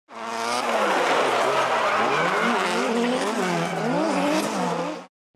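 Drift car's engine revving up and down again and again with tyres squealing as it slides. It fades in at the start and cuts off sharply about five seconds in.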